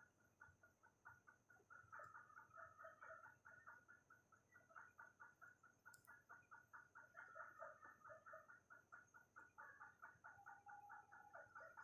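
Faint, rapid clucking of chickens, about five clucks a second, with a longer drawn-out call near the end. A faint steady high tone runs under it, and a single sharp click sounds about halfway through.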